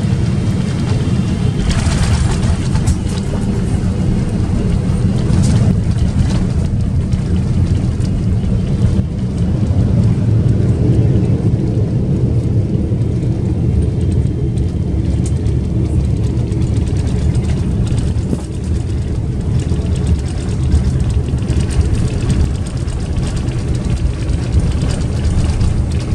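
Cabin noise of a Boeing 777-300ER on its landing roll: a loud, steady low rumble of the engines and the wheels on the runway. It swells a few seconds in and eases off in the second half as the airliner slows.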